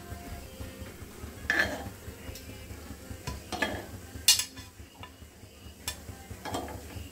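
Metal spoon knocking and scraping against a non-stick paniyaram pan as cooked paniyarams are scooped out of their wells onto a plate. There are about six separate clinks, the sharpest about four seconds in.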